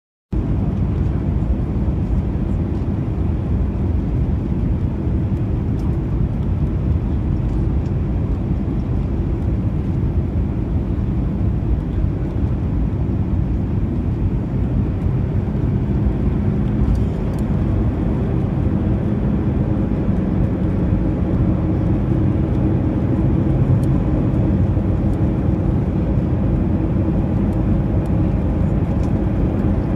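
Steady jet engine and airflow noise heard inside an Airbus A320 cabin, with a low engine hum standing out in the middle.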